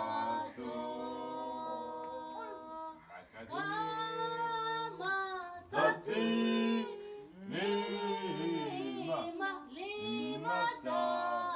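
A small group of people singing together unaccompanied, a woman's voice among them, in long held phrases with short breaks between them.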